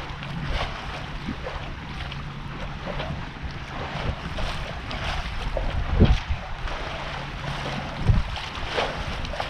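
Wind buffeting the microphone and water rushing past the hull of a sailboat under way, with a low steady hum that stops near the end and a few dull thumps, the loudest about six seconds in.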